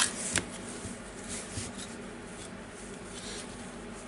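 Gloved hands handling and seating wires and parts in a cordless drill's plastic housing: two small clicks in the first half second, then light rubbing and rustling.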